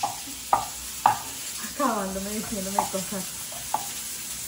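Kitchen utensils clicking and tapping: three sharp taps in the first second and a couple more later, over a steady hiss. A person's voice sounds briefly in the middle.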